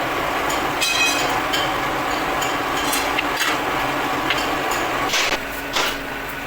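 A machine's motor running steadily, with scattered metallic clinks and knocks over it; it drops a little quieter about five seconds in.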